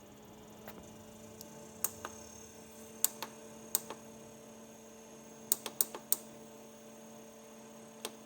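SetPower RV45S 12V compressor fridge running with a steady hum from its compressor at maximum speed. Nine sharp clicks come from the buttons on its control panel: two near two seconds, two around three to four seconds, a quick run of four around five and a half to six seconds, and one near the end.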